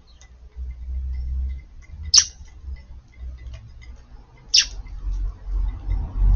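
Eurasian tree sparrows calling: two sharp chirps that drop quickly in pitch, about two seconds in and again near four and a half seconds, among faint scattered ticks. A low rumble runs underneath and grows louder toward the end.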